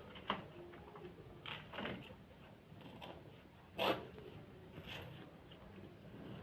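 Sheet of paper being handled and folded: a few short rustles and crinkles, the loudest about four seconds in.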